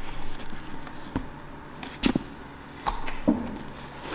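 A leather tool bag being handled and lifted off a workbench: a few short knocks and rustles. The loudest come about two seconds in and again just after three seconds.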